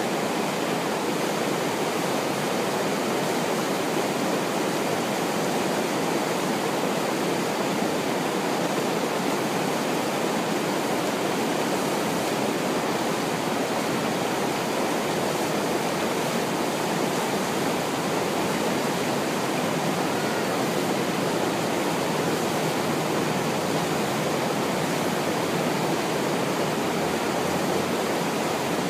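Steady rush of whitewater from a river standing wave breaking in place, an even, unbroken roar of churning water that holds the same level throughout.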